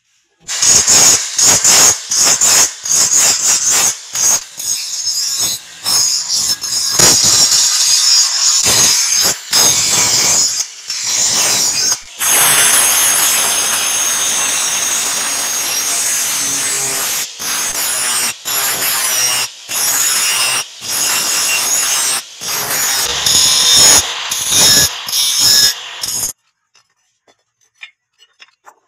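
Angle grinder with an abrasive cut-off disc cutting the edge of a steel leaf-spring knife blank, a loud high whine broken into many short stretches with brief gaps. It stops suddenly near the end.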